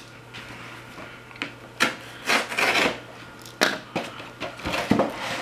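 Cardboard parcel being cut open with a knife: a string of short rasping scrapes and rustles, blade on tape and cardboard.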